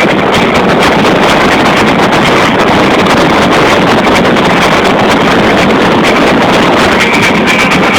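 Tycon motorboat under way: a steady, loud rush of engine and water, with wind buffeting the microphone.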